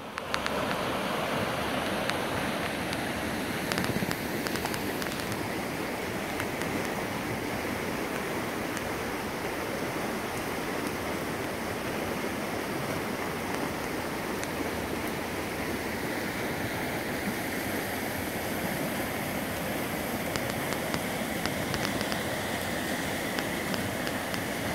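Swollen creek in flood: fast, muddy floodwater rushing steadily over rocks and flooded grass.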